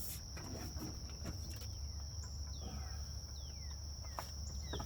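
Steady high-pitched insect trill over a low steady hum, with a few short falling chirps and a couple of sharp knocks near the end.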